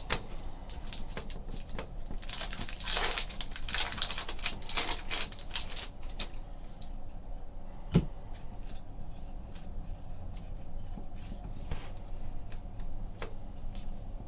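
Trading cards and pack wrappers being handled at a table: a dense run of rustling between about two and six seconds in, scattered small clicks and flicks throughout, and one sharp knock about eight seconds in.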